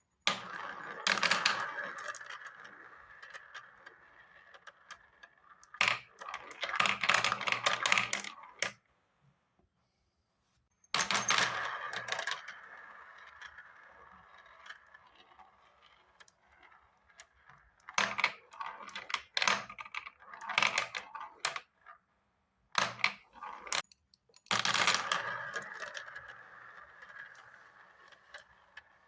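Marbles clattering and clicking down a marble run in several bursts of rapid clicks, each followed by a rolling rattle that fades away, with a short silent pause near the middle.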